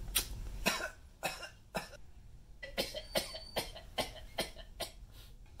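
A man coughing in a rapid string of short, irregular coughs, putting it on to seem sick.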